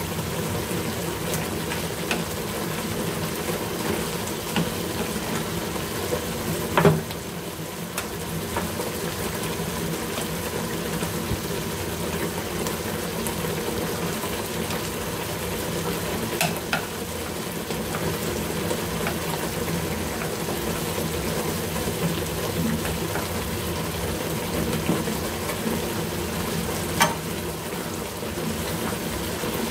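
Luffa, meat and tomato stew simmering and sizzling steadily in a nonstick frying pan while wooden chopsticks stir it, with a few sharp clicks of the chopsticks against the pan.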